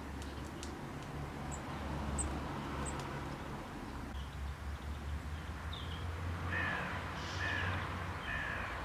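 Three short, harsh, crow-like calls about a second apart near the end, over a steady low rumble, with a few faint high chirps near the start.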